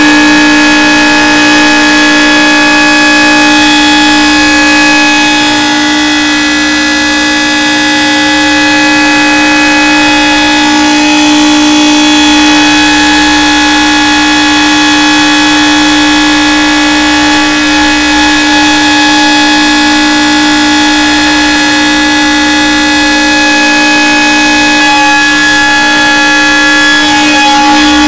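Outdoor tornado warning siren sounding loud, holding one steady pitch without rising or falling.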